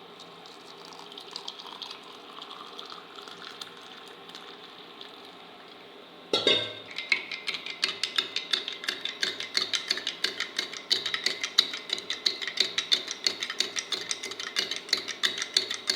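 A spoon stirring quickly in a glass, clinking against its sides about four to five times a second; it starts suddenly about six seconds in, after a stretch of faint hiss.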